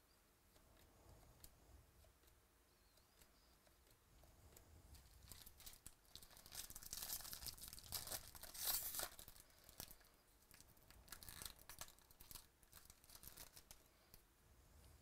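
Quiet tearing and crinkling of a trading-card pack wrapper being ripped open, a run of quick rustling strokes that builds about a third of the way in, is loudest around the middle, and trails off into sparser crinkles near the end.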